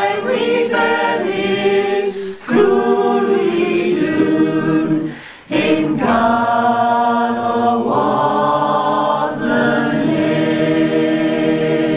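Small choir singing, long held notes in slow phrases, with short breaks for breath about two and a half and five and a half seconds in.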